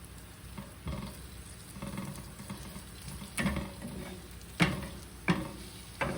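Asparagus frying in a pan, sizzling faintly as it is stirred, with several sharp knocks and scrapes of the utensil against the pan, the loudest near the end.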